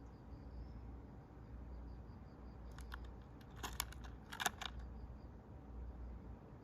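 Faint steady chirping of crickets, with a cluster of small sharp clicks and clatters from about three to four and a half seconds in.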